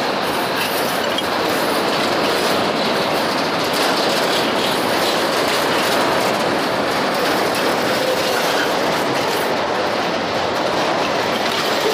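Loaded freight train's wagons, boxcars and covered grain hoppers, rolling past close by: a steady rolling rumble with the wheels clattering on the rails.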